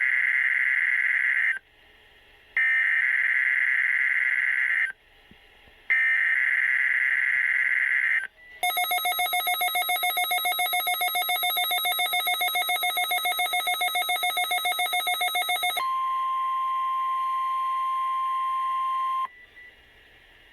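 NOAA Weather Radio alert signalling: three buzzing bursts of SAME digital header tones, each about two seconds long. Then comes about seven seconds of a fast-pulsing electronic ringing tone, then the steady weather radio warning alarm tone for about three and a half seconds, which cuts off.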